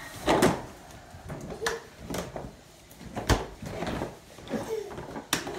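Plastic ride-on toy clattering on a tile floor as a toddler scoots it along, with a series of irregular sharp knocks and rattles.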